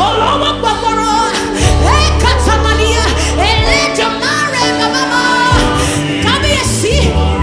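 Live gospel worship music: a woman sings lead in sliding vocal runs, with backing singers and a band behind her. Deep bass notes are held under the voices and change every second or two.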